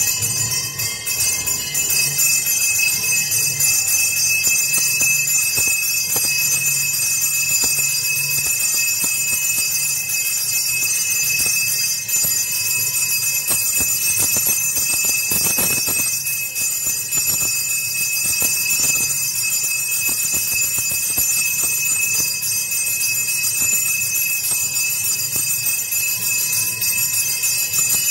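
Temple bells ringing continuously and evenly during an aarti, a bright sustained jangle with no break.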